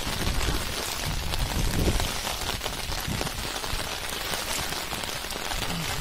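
Steady rain falling on shallow floodwater, an even hiss, with some heavier low rumbling in the first two seconds.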